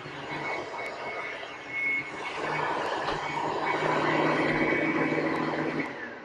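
Direct-air upright vacuum cleaner running with a steady high whine and a low hum. It is switched off near the end, and its pitch falls as the motor spins down.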